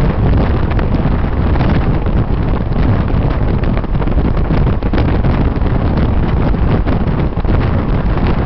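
Loud, steady wind rushing and buffeting over the microphone of a camera in a moving car, with the car's engine and tyre noise underneath.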